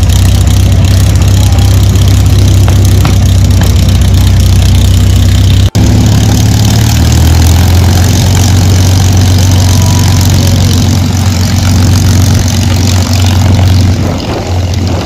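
P-51 Mustang's V-12 piston engine idling loudly with a steady low rumble. Near the end the aircraft begins to taxi away and the sound drops a little.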